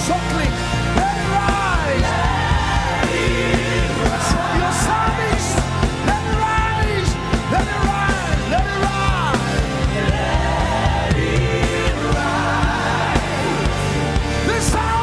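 Live gospel worship music from a band with bass and drums, with a voice singing gliding, drawn-out lines over it.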